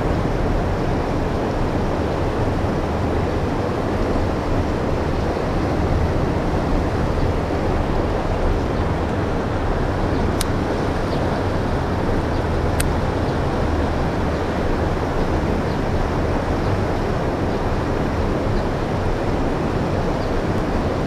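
Water rushing over a low weir into a shallow rapid: a steady, even roar of white water. Two faint sharp clicks about ten and thirteen seconds in.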